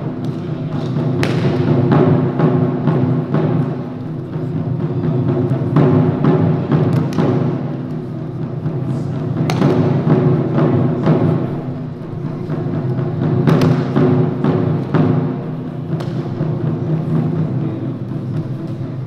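Japanese taiko drums played continuously in a dense, driving rhythm, with a few sharper cracking strikes standing out now and then.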